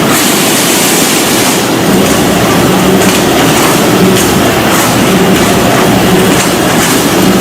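Trumpf automated sheet-metal machine running at full tilt: a loud, continuous, rapid mechanical clatter with a recurring hum underneath.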